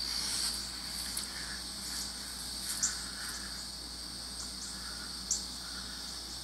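Steady, high-pitched trilling of an outdoor insect chorus, with two brief sharp clicks, one a little under three seconds in and one about five seconds in.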